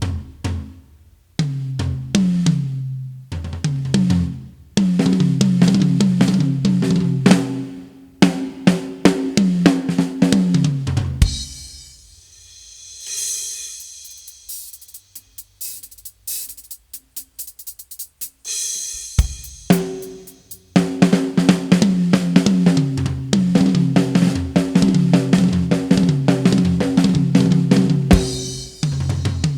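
Music with a drum kit (kick, snare, hi-hat and cymbals) over a repeating bass line. About twelve seconds in it drops to a sparse break of cymbal wash and scattered hits, and the full beat comes back around twenty seconds in.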